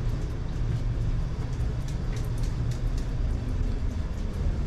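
Steady low rumble of background noise, with a few faint light clicks between about two and three seconds in.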